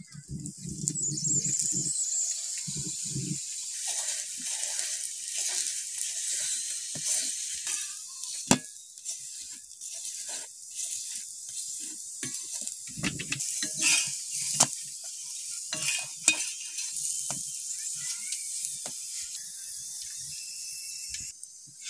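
Oil sizzling on a roti on a hot iron tawa, starting about a second in and going on steadily. A metal spatula scrapes and taps against the pan as the roti is pressed, giving a few sharp clicks.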